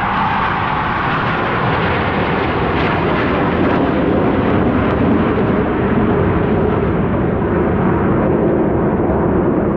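Jet noise from KAI T-50 trainer jets flying past: a loud, steady rushing roar whose pitch sinks lower over several seconds.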